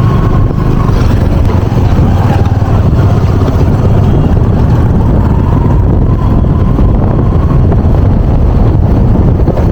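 Loud, steady low rumble of a moving vehicle mixed with wind buffeting the microphone.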